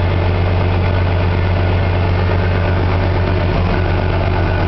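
Mazda RX-7 FC's 13B turbo rotary engine idling steadily.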